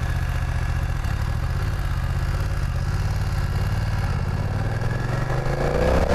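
BMW 900 cc parallel-twin motorcycle engine running at low revs as the bike rolls slowly. It revs up about five and a half seconds in as the bike accelerates.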